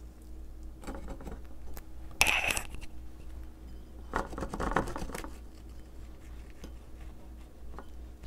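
Kitchen handling noises during baking preparation: three short bursts of scraping and rustling, about a second in, the loudest just after two seconds, and another around four and a half seconds. A steady low hum runs underneath.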